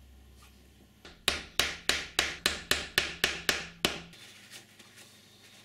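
A claw hammer striking a small glued plywood workpiece, about ten quick, even blows at roughly three to four a second, each with a short ring.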